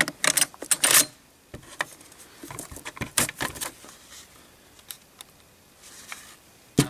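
Metal clicks and rattles of an AK-47's action being handled and the glued bolt carrier eased slowly forward into battery, with a burst of clicking at the start, scattered lighter clicks, and one sharp click near the end.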